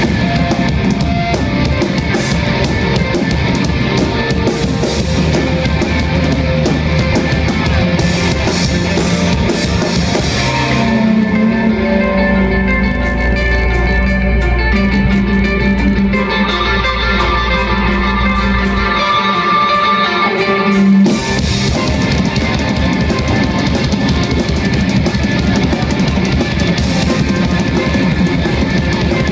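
Rock band playing live: electric guitars over a drum kit. About eleven seconds in the drums drop out, leaving held guitar notes over a low drone, and the full band comes back in about ten seconds later.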